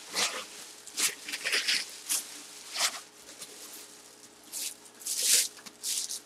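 Plastic bag crinkling and rustling in irregular bursts as a full-size football helmet is pulled out of it by hand.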